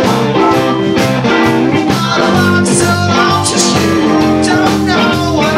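Live blues band playing: electric guitars over bass guitar, drums and keyboard.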